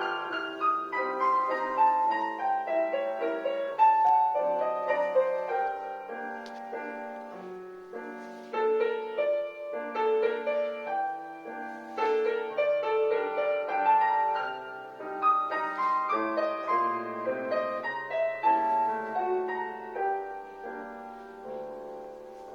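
Solo piano playing a gentle classical-style piece, a ballet class accompaniment, fading near the end.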